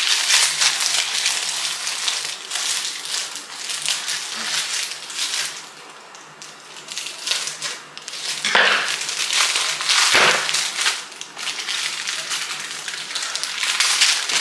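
Crinkling and crackling of a sealed plastic cookie wrapper being worked and pulled open by hand, a wrapper that is hard to get open. The crinkling eases off about six seconds in, then comes back with two sharper rustles a couple of seconds later.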